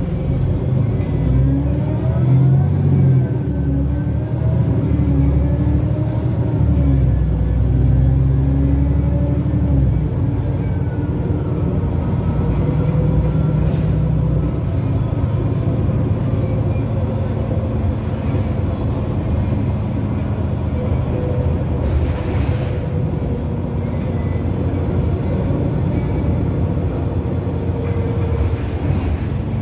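Cabin noise inside an Otokar Kent C-12 diesel city bus on the move: a steady low engine rumble, with tones that rise and fall in pitch during the first ten seconds and then hold steadier. A few short bursts of noise cut in, the longest about two-thirds of the way through.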